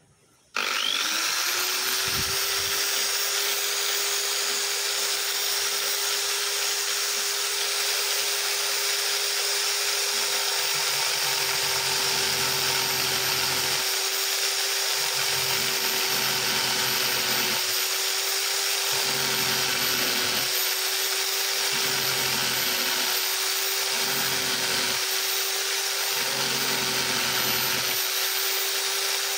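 Electric drill starts up about half a second in, its pitch rising, then runs steadily with a high whine, spinning a sandpaper drum. From about a third of the way in, a camshaft lobe is pressed against the drum again and again, adding a rougher grinding sound in short repeated spells as the lobe is ground down.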